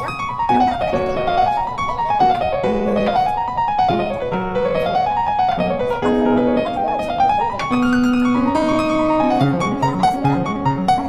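Background music: a piano playing runs of notes that climb and fall again about every two seconds over lower held notes.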